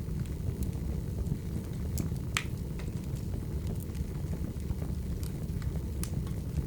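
Wood fire burning, with sharp crackles and pops scattered over a steady low rumble; one louder pop comes a little over two seconds in.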